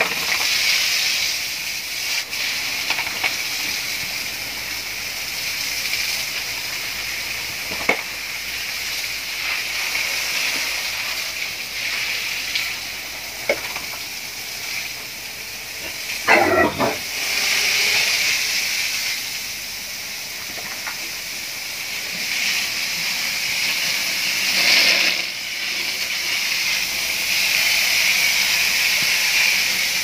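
Garden hose spraying a jet of water onto pigs and the concrete pen floor: a steady hiss. A brief, louder sound stands out about halfway through.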